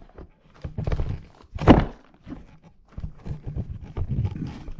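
A run of irregular knocks and clunks from things being handled and bumped, with one loud thunk about 1.7 s in.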